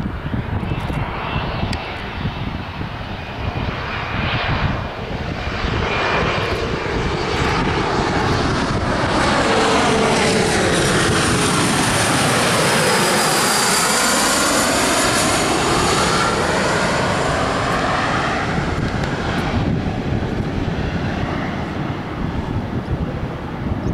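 Bombardier CRJ-900 regional jet on landing approach passing low overhead, its two rear-mounted General Electric CF34 turbofans whining and rumbling. The sound builds to its loudest as the jet passes directly overhead about halfway through, with a sweeping, phasing swirl, then fades away. Wind buffets the microphone throughout.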